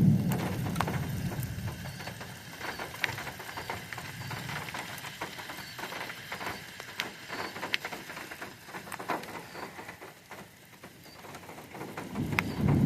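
Thunderstorm rain falling, with scattered heavy drops striking close by as sharp ticks. A low rumble of thunder fades out in the first couple of seconds, and a low rumble builds again near the end.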